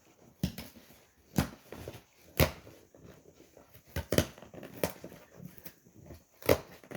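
A large cardboard box being handled and opened: a series of sharp knocks, about six in all, with fainter rustling of cardboard and packing between them.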